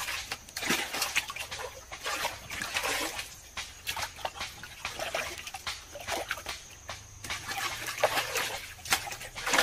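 Irregular splashing and sloshing in shallow muddy water as hands grope for and grab fish, with a large fish thrashing in the water.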